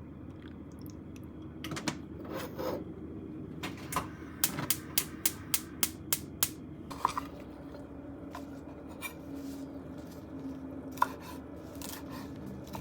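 Eating utensils clinking against dishes at a meal: a quick, even run of about eight light clinks a few seconds in, and one sharper clink near the end.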